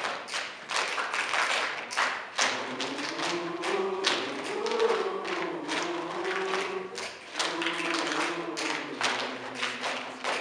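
A choir keeps a steady beat with hand claps and pats. About two and a half seconds in, it begins singing held, unaccompanied chords over the beat, the top line rising and falling.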